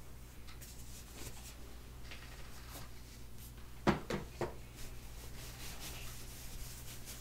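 Light taps while baby powder is shaken from a plastic bottle, then three quick knocks about four seconds in as the bottle is handled and set aside. After that, a hand rubs over a plastic-backed diaper with a soft, even crinkly swish.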